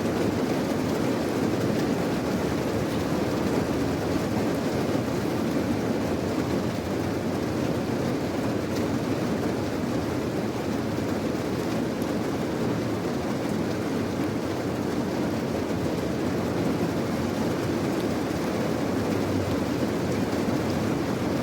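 Steady rain sound for sleep: an even, unbroken rush of noise with a deep, low-heavy rumble and no distinct drops or changes.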